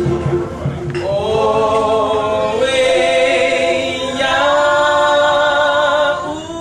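Drumming for a Polynesian dance that gives way about a second in to a group of voices singing together in chorus, holding long notes that change pitch every second or two.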